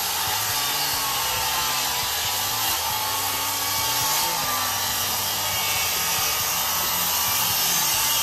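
Electric circular saw running steadily under load as it cuts up through a wooden pergola beam to remove it.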